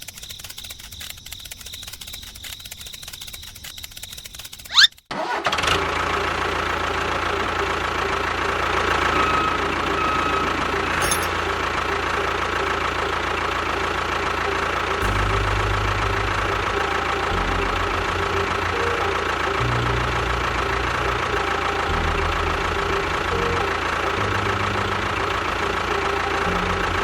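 Crickets chirping, then about five seconds in a sudden switch to a small motor running steadily with a constant whine.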